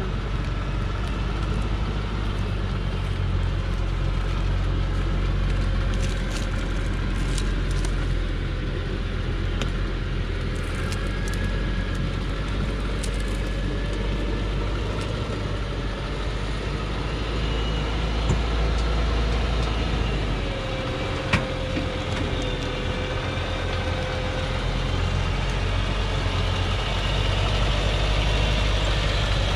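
Engine of a loaded old Thaco Forland truck running at low revs as it crawls down a steep dirt slope, a steady low drone. A single sharp knock sounds about two-thirds of the way through.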